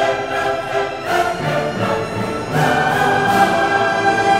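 Orchestral background music with strings, moving to a new sustained chord about two and a half seconds in.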